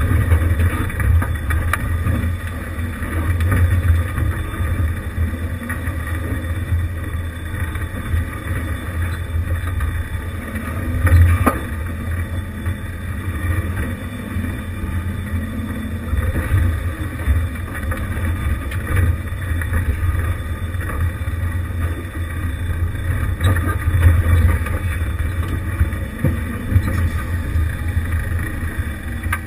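1988 Jeep Wrangler YJ's engine running low and steady at crawling speed over loose rock, with occasional knocks as it works over the rocks, the loudest about eleven seconds in.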